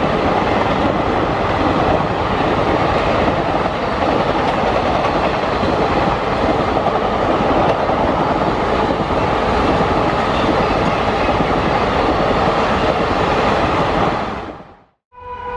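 Passenger train coaches running past: a loud, steady rumble and clatter of wheels on the rails, which fades out near the end. Just before the end, a train horn starts sounding one held note.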